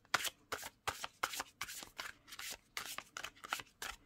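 A deck of large oracle cards being shuffled by hand: a quick, even run of short papery slaps, about five a second.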